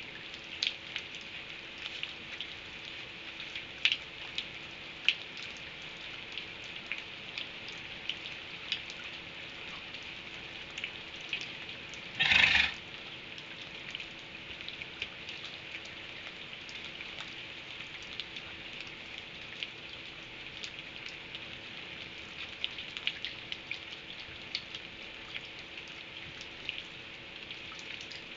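Rain falling, a steady patter with irregular sharp drop ticks, and one brief louder burst of noise about halfway through.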